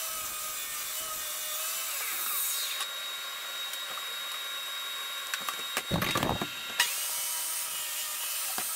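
Table saw running steadily, with a sheet of birch plywood being slid and knocked on its table; a few dull knocks come about six seconds in.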